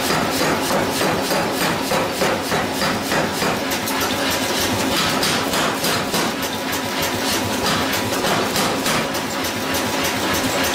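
Power hammer pounding hot steel in a fast, steady rhythm of about five metal-on-metal blows a second.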